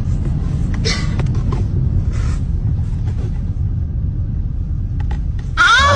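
A steady low rumble, then near the end a sudden loud wavering cry that bends up and down in pitch.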